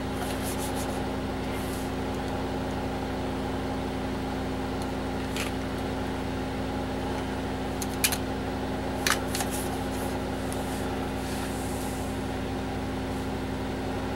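Steady hum of a running 486 desktop PC with its case open, its fans and drives holding several fixed tones. A few sharp keyboard key clicks cut through it, the loudest about eight and nine seconds in.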